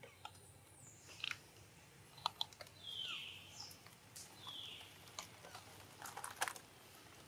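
Faint open-air background with scattered light clicks and taps and a few short, high chirps that fall in pitch.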